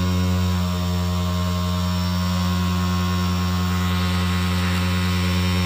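Electric sewing-machine motor standing in for the engine, spinning the distributor of an ignition simulator with a steady hum.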